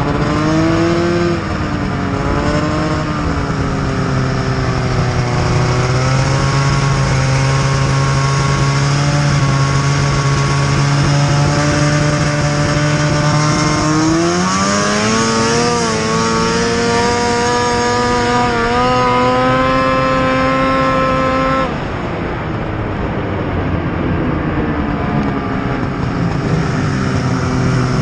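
Snowmobile engine running under throttle, its note holding steady, then climbing in pitch about halfway through and dropping away suddenly about three-quarters of the way in to a lower, rougher sound.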